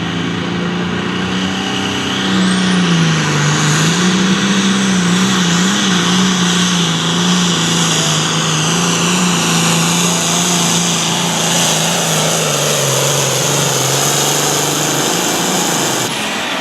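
Turbocharged hot farm tractor engine running hard under load on the pull. Its pitch wavers, then steps down twice in the last few seconds, and a high turbo whistle rises about two seconds in.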